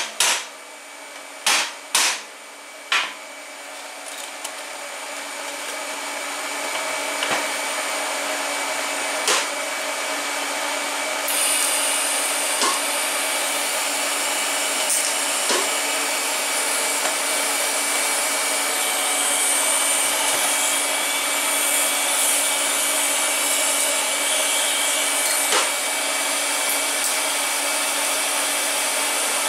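A few sharp metal knocks as aluminum blocks are set on the part, then a steady hiss of moving air that builds over several seconds. About eleven seconds in, a DC TIG welding arc at about 125 amps strikes on the stainless steel turbo flange and hisses steadily.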